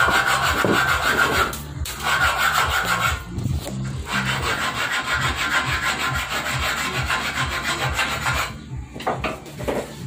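Handheld gas torch burning with a steady hiss. The hiss breaks off briefly twice and stops about eight and a half seconds in.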